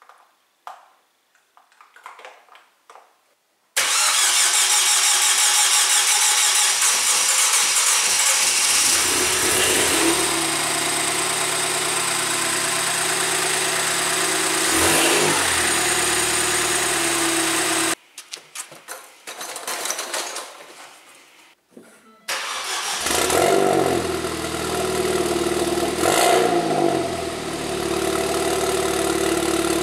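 Freshly rebuilt Ford Fiesta ST turbo engine running for the first time on new spark plugs and coils: its sound comes in abruptly about four seconds in and holds a steady fast idle, with a brief rev in the middle. The sound drops out for a few seconds past the halfway point, then the engine is heard idling again with another short rev that falls back.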